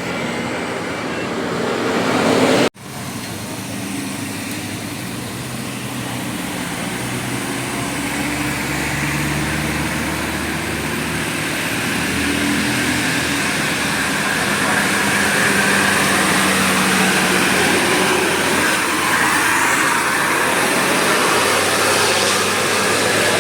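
Roadside traffic noise with a bus engine running by and people's voices mixed in; the sound drops out for an instant about two and a half seconds in.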